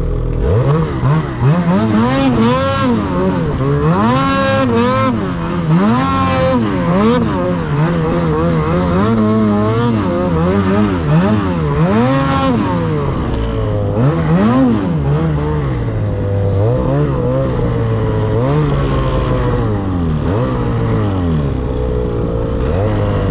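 Snowmobile engine opening up at the start, then revving up and down about once a second as the sled works through deep powder snow, settling to steadier running in the second half.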